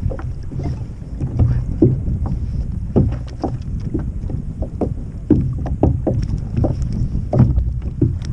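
Wind blowing over the microphone as a steady low rumble, with many short irregular knocks from around the kayak.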